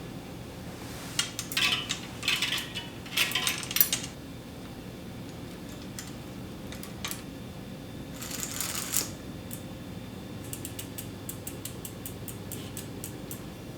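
Metal bicycle parts and tools clinking and rattling as they are handled, with a brief rustle partway through, then a run of quick, even ticking for a few seconds near the end.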